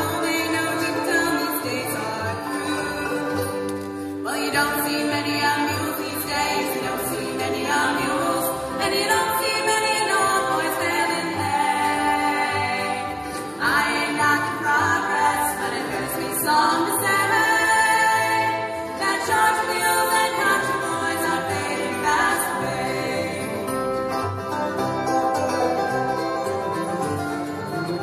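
Live bluegrass band playing a song: women's voices singing together over banjo, mandolin, guitars, fiddle and upright bass.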